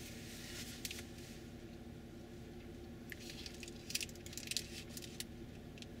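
Faint, steady low drone of a combine harvester cutting corn and a freight train rolling past at a distance, with scattered light clicks and crackles about a second in and again a few seconds later.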